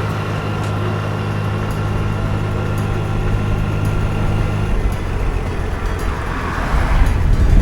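Vehicle engine running with a steady low hum. About five seconds in, the hum gives way to a rougher, noisier rush.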